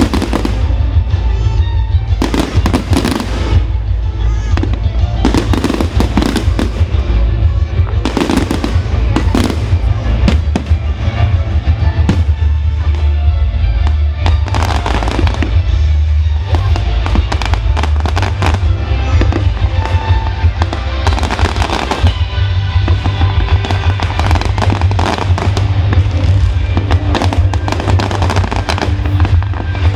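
Fireworks display: a continuous run of bangs and crackling bursts over music, with a steady low rumble underneath.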